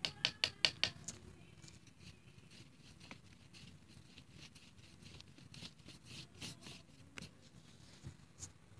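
Light sharp clicks: a quick run of about seven in the first second, then a few scattered single taps over a faint background.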